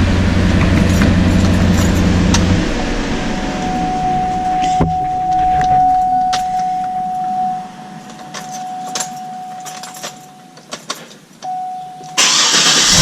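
SUV running with a loud low hum that cuts off about two and a half seconds in. A single steady tone follows, with scattered clicks, until a loud noise returns near the end.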